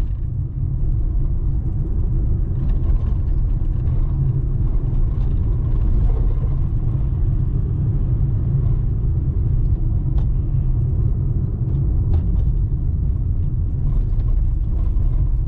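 A car driving along a city avenue, heard from inside the cabin: a steady low rumble of tyres on the road and the engine.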